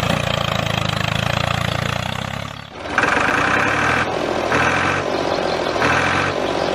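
Tractor engine sound idling steadily. It dips briefly midway, then runs on with three higher pulses, each about half a second to a second long.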